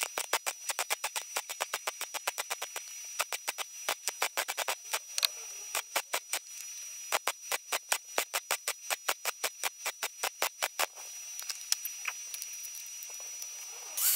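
MIG welder stitch-welding a steel repair section into a car's A-pillar: a rapid run of short pulses, about four a second, that stops a few seconds before the end. An angle grinder starts up right at the end.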